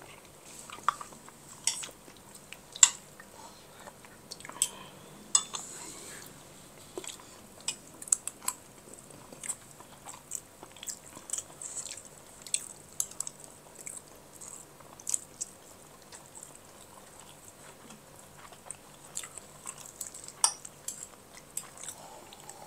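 Eating sounds: chewing and mouth clicks, with irregular sharp clinks of cutlery on a plate, as rice with jengkol balado is eaten.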